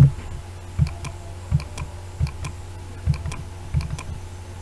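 About six irregularly spaced clicks at a computer, such as mouse buttons and keys being pressed, over a steady low electrical hum.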